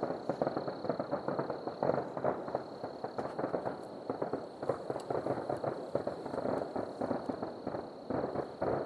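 Distant fireworks or firecrackers popping and crackling in a dense, irregular stream of small bangs, with a faint steady high-pitched tone underneath.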